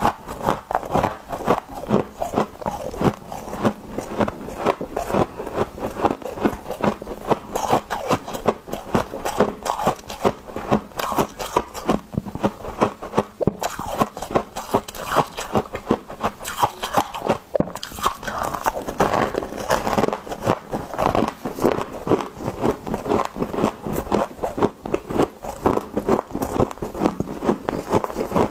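Close-up crunching of ice chunks being bitten and chewed: a continuous run of rapid, crackly crunches, several a second.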